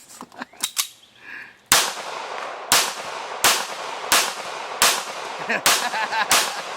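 A gun fired in rapid, evenly paced succession: seven sharp shots less than a second apart, starting a little under two seconds in, each trailing a short echo.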